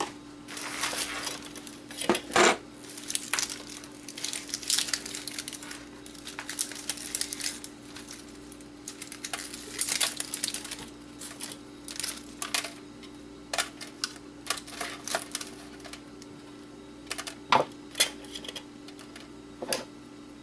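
Handfuls of thin insulated hookup wire with small plastic connectors rustling and clicking as they are gathered by hand and dropped onto the steel pan of a digital scale, with irregular light clinks and taps.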